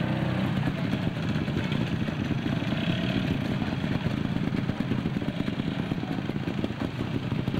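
Trials motorcycle engines running at low revs in a steady, rapid chatter, the nearest bike picking slowly through the section while others idle.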